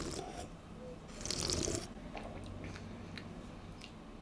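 Person sipping a drink from a mug and swallowing, with a short breathy hiss about a second and a half in and faint small mouth clicks.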